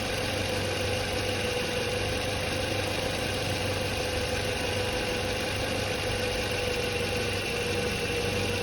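Car engine idling steadily, with a constant whine riding over the running engine, the sound of an alternator at work.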